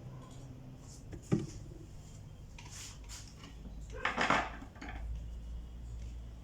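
Small hard parts being handled and set down on a work surface: a sharp click a little over a second in, then a louder clattering knock about four seconds in.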